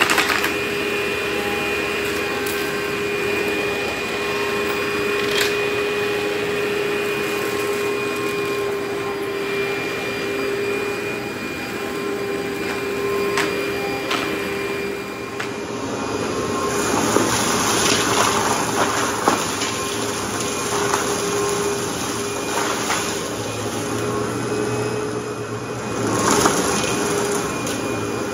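Upright vacuum cleaner running with a steady motor whine as it is pushed along. A few sharp ticks come in the first half. From a little past halfway, a louder, busier crackle of debris being sucked up joins it.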